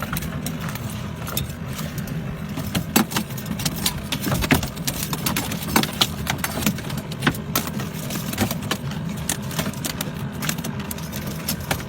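An engine idling steadily, with scattered sharp clicks and knocks over it.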